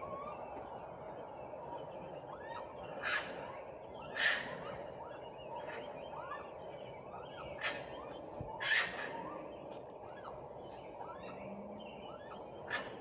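Unidentified animal calls: loud harsh screeches, mostly in pairs about a second apart, five in all, with many quieter squeaks in between.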